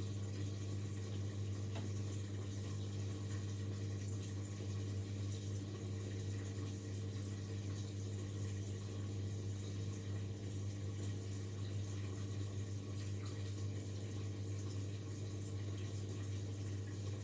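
Indesit 71252 washing machine running with a steady low hum and the sound of water moving inside.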